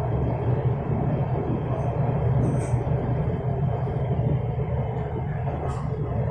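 Orange Line electric metro train running between stations, heard from inside the carriage as a steady low rumble with a couple of faint light ticks.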